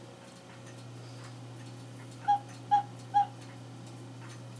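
Three short, identical toots from a cuckoo clock bellow, its wooden whistle pipe sounded by hand, about half a second apart near the middle. A steady low hum and faint ticking lie under them.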